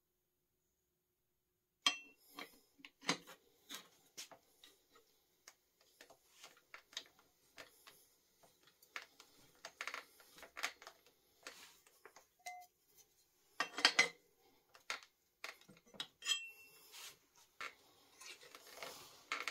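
Metal bicycle parts clicking and clinking as they are handled and fitted at the crankset of a bike in a repair stand: a run of sharp, irregular clicks starting about two seconds in.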